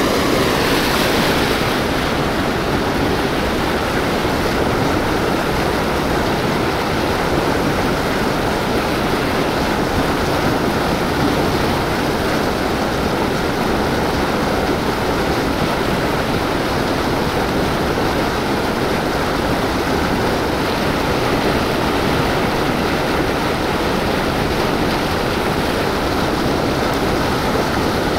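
Steady, loud rush of churning river water.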